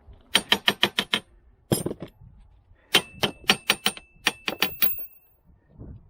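Two quick runs of sharp metal-on-metal clicks or strikes, several a second, from a tool working a wheel's lug nut; a ringing tone hangs under the second run.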